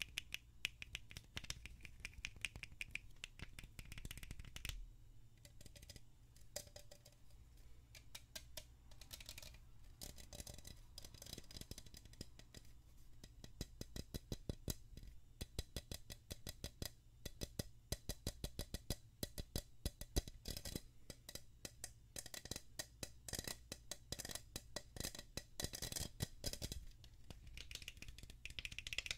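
Rapid, irregular fingernail tapping and scratching on a metal aerosol spray can held close to the microphone, with a short pause about five seconds in.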